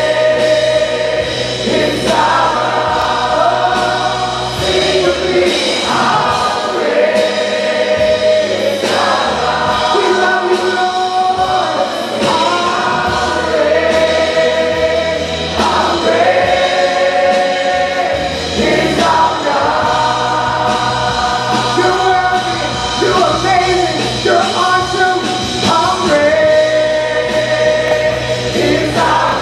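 Live worship band of electric guitars, bass guitar and drums playing while a group of voices sings a contemporary worship chorus together in long held phrases.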